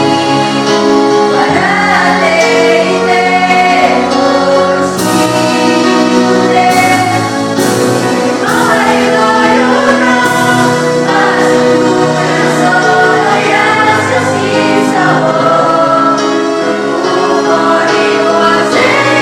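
Vocal group singing a song in unison, one voice part, with held notes and smooth changes of pitch.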